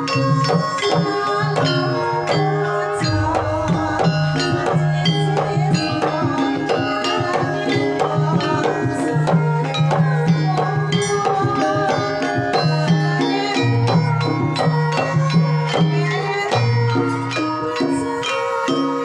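Javanese gamelan ensemble playing a gending: many struck metal tones ringing on over hand-drum strokes and low sustained tones, in a steady, continuous texture.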